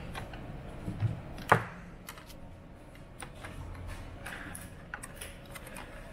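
Scattered light clicks and taps of hard objects being handled, with one sharp knock about one and a half seconds in.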